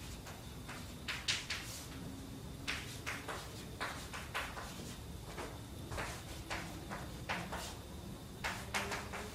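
Chalk writing on a blackboard: irregular clusters of short, scratchy taps and strokes as each letter and symbol is written.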